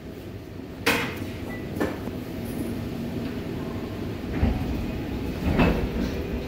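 Interior of a Seoul Subway Line 4 train car at a platform as it begins to pull away. Two sharp clunks come about one and two seconds in, and heavier thumps follow near the end, over a steady rumble and hum from the train's equipment.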